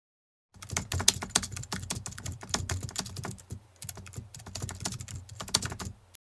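Computer keyboard typing sound effect: rapid key clicks, with a short pause about three and a half seconds in.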